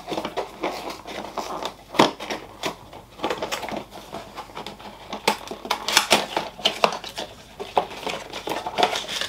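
Small cardboard product box being opened by hand: flaps and tabs pulled free, with cardboard and paper scraping, rustling and clicking irregularly. One sharper click comes about two seconds in.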